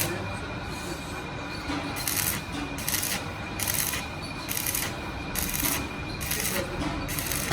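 Rhythmic rasping strokes of hand abrasion on a steel gearbox shaft, about one every 0.8 seconds, over a steady machine hum.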